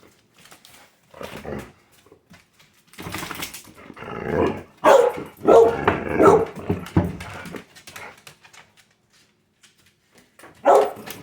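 Pet dog talking: a string of barks and drawn-out vocal sounds in bursts, loudest in the middle, then a pause near the end.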